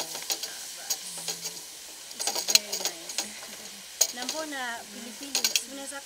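A long wooden cooking stick scrapes and knocks irregularly against a large aluminium pot as goat meat and onions are stirred, over a steady sizzle of frying.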